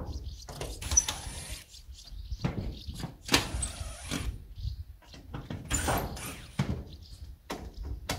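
Several short bursts of a cordless drill backing roofing screws out of old corrugated steel roof sheets, with knocks and scrapes between them.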